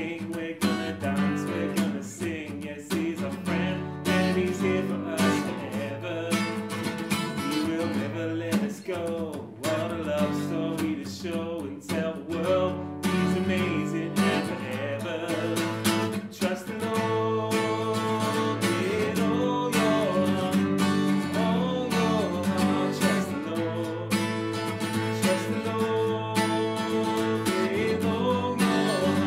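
Acoustic guitar strumming to accompany singing in a children's worship song.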